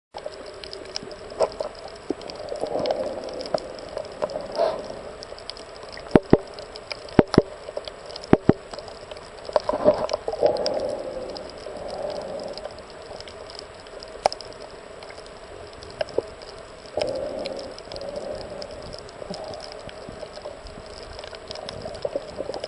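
Underwater sound picked up by a snorkeler's camera: muffled sloshing and gurgling water with a few sharp clicks, most of them between about six and ten seconds in.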